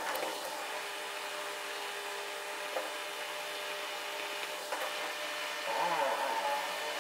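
Marker rubbing across a whiteboard as diagrams and a formula are written, over a steady hiss, with a few short squeaks about six seconds in.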